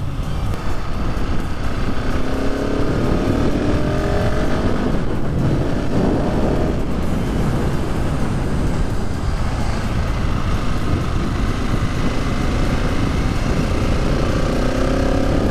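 Husqvarna 701 Supermoto's single-cylinder four-stroke engine running under way. Its pitch rises as it accelerates a couple of seconds in, and again near the end, over a steady rushing noise.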